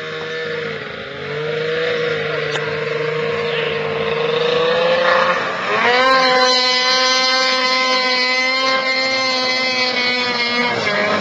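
Snowmobile engine running hard as the sled skims across a pond. The engine note climbs sharply about halfway through, holds a loud, steady high whine for several seconds, then drops off shortly before the end.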